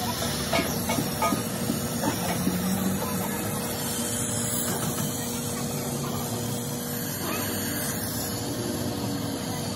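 Gas torch flame hissing steadily as it melts the lead lugs of battery plates, with a few light knocks in the first couple of seconds.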